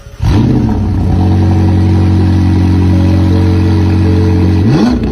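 McLaren Elva's twin-turbo V8 starting up: it catches suddenly with a brief flare in revs, settles into a steady idle, and is given a quick rev near the end.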